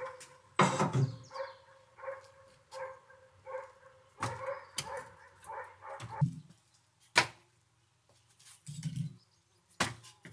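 A steel wheelbarrow full of split firewood rolling over a tiled patio, with a regular knock about every two-thirds of a second. Then split logs are set down and knocked against each other as they are stacked onto a woodpile, in a few sharp wooden clunks; the loudest is about seven seconds in.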